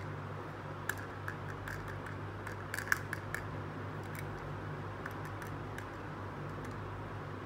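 Small hard-plastic toy pieces clicking and tapping as they are handled: a scatter of light clicks, thickest about three seconds in, over a steady low hum.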